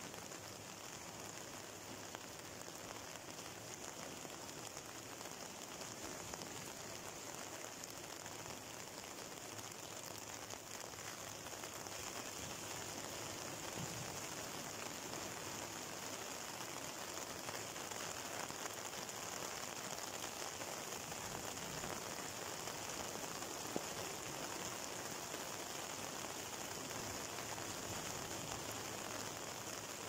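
Rough sea waves breaking and washing over a rocky shore in rain: a steady rushing hiss with no distinct strokes, growing a little louder partway through.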